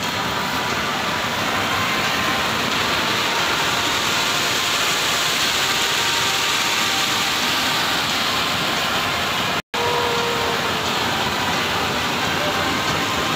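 Stream water rushing over rocky cascades close by, a loud, steady roar of falling water. The sound breaks off for an instant about three-quarters of the way through, then carries on the same.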